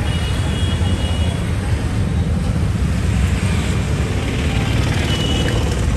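Steady low rumble of road traffic, with a faint high-pitched tone sounding briefly near the start and again near the end.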